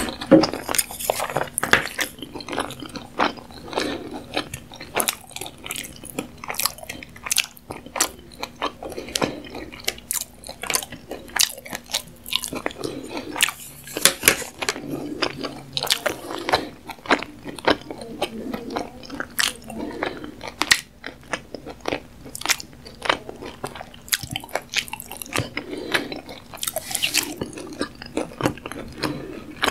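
Close-miked chewing of a mouthful of sushi: wet mouth noises with many sharp, irregular clicks.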